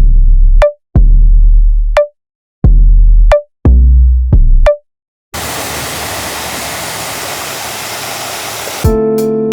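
Electronic music with heavy, deep bass hits cut by sudden gaps of silence. About five seconds in it gives way to three and a half seconds of steady rushing noise that starts and stops abruptly, and then guitar-led music comes in near the end.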